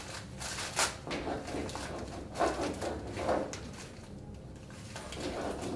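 A macaque handling and picking at a paper-wrapped cardboard forage tube: irregular crinkling and crackling of paper and cardboard, with a few sharper crackles, over a low room hum.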